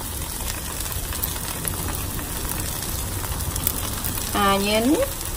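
Bánh xèo batter with its filling sizzling steadily in an oiled pan over medium heat. A brief bit of voice cuts in near the end.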